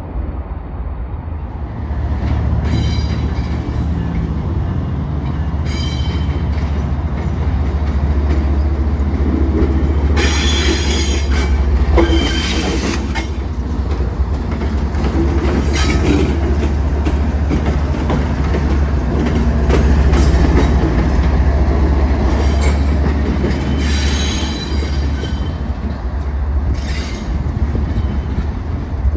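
BNSF 6134, a diesel locomotive running on its own, moves past: a steady deep engine rumble, with its wheels squealing several times on the rails.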